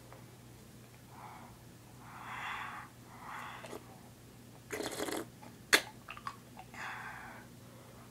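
Several heavy breaths puffed out through the mouth around an ice cube held in it. A brief rustle and one sharp tap come a little past the middle.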